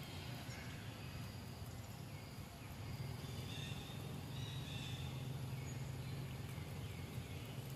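Outdoor ambience: a steady low hum, with a few faint high chirps around the middle.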